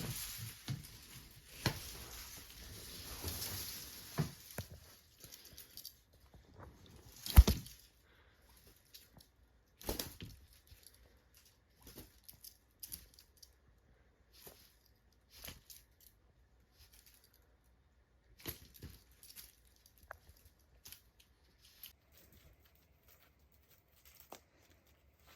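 Cats playing with toys: rustling and crinkling for the first few seconds, then scattered light taps and knocks, with a loud thump about seven seconds in and another at ten.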